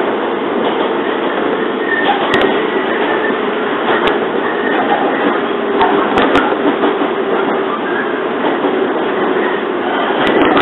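Inside a JR 115 series electric train running along the line: a steady rumble of wheels and running gear with a faint held tone, and a few sharp clicks scattered through it.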